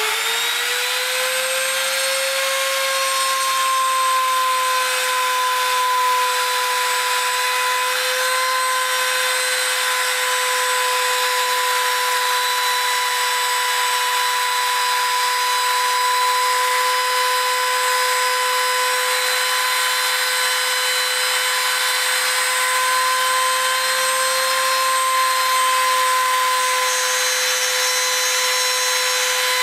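Compact trim router coming up to speed at the very start, then running with a steady whine as it routs out a shallow hinge recess in a timber door jamb.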